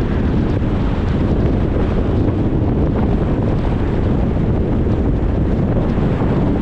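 Steady road noise from a car driving: an even rumble of tyre and wind noise, with no breaks or separate events.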